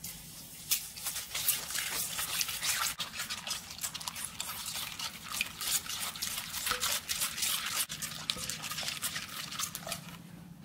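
Silicone spatula quickly stirring raw egg, sugar and vegetable oil in a clay bowl: continuous wet scraping and clicking that eases off near the end.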